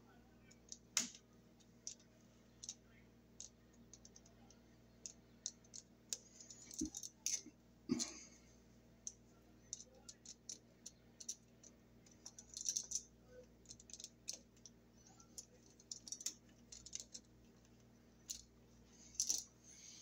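Needle-nose pliers clicking and ticking against a bare copper ground wire and the switch's metal yoke, in faint irregular clicks, as the wire is bent into a loop around the switch's green ground screw.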